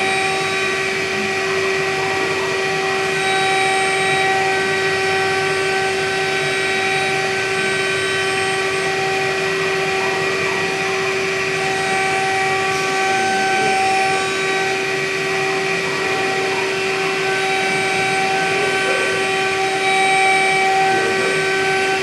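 High-speed spindle of a MillStep PAX6050V2 CNC milling machine running with a steady high whine while an end mill cuts a pocket in a plastic plate. A steady hiss lies under the whine.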